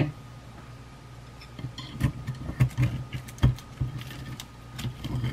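Wooden chopsticks tapping and scraping on a ceramic plate as they cut into a breaded fried mackerel fillet: a sharp knock at the start, then a run of irregular small clicks and knocks from about a second and a half in.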